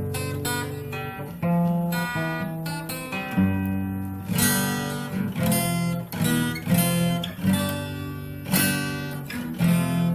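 Yamaha FX315 acoustic guitar playing a run of strummed chords, the chord changing every second or so over a full bass.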